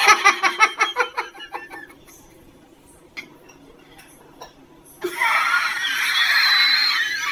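A person snickering for about two seconds, then a quiet stretch with a couple of faint clicks as a jar lid is twisted off. About five seconds in comes a loud hissing noise lasting to the end.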